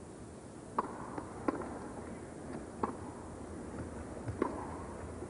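Tennis ball struck by rackets in a rally, beginning with the serve: four sharp pops roughly a second to a second and a half apart, with fainter ticks between them, over the low murmur of an arena crowd.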